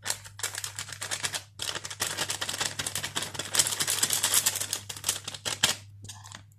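Plastic sachet of custard powder crinkling and crackling in quick, dense ticks as it is shaken and tapped out over a ceramic bowl, dying away about a second before the end.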